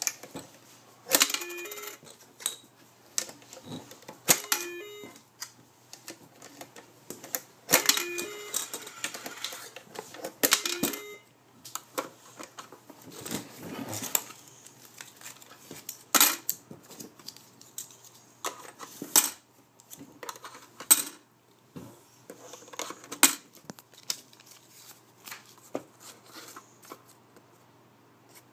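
Toy ATM savings bank being worked by hand: repeated clicks and knocks from its plastic keypad and casing, with several short bursts of electronic sound from the machine, the longest about a third of the way through.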